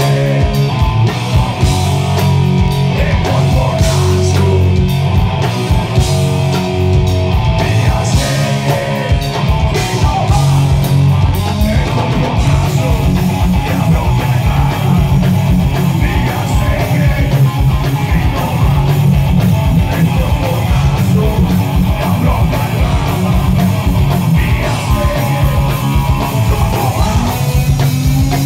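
Live rock band playing loud: electric guitars and bass over a fast, driving drum beat, with a singer's vocals.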